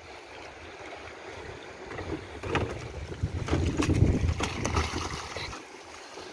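A man in snorkel gear climbs over the side of a wooden outrigger boat and drops into the sea. Knocks on the hull and splashing water come in a busy stretch a few seconds in, with wind rumbling on the microphone throughout.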